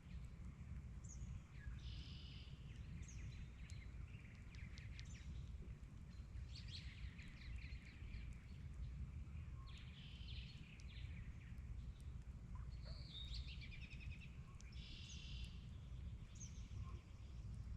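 Several birds calling and singing: short chirps and buzzy trills that come and go. A steady low rumble runs underneath.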